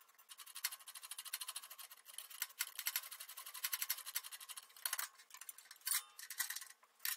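Hand socket ratchet clicking rapidly as a bolt is backed out, followed by a few separate clicks and taps near the end.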